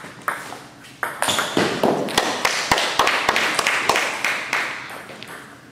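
A couple of sharp table tennis ball clicks at the start. Then, from about a second in, a loud rustling noise with a string of quick taps, roughly three a second, fading out near the end.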